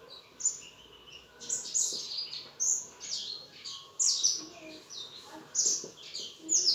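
Small birds chirping: a rapid, continuing series of short, high chirps that sweep downward in pitch.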